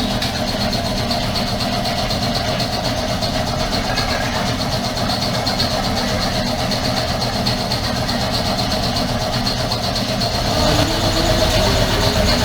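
Air compressor running with a steady mechanical hum, getting a little louder about eleven seconds in.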